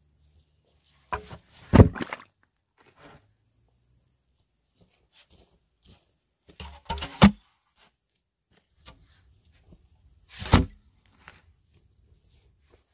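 Heavy knocks or thumps in three bunches: a few about a second to two seconds in, two close together about seven seconds in, and a single loud one about ten and a half seconds in.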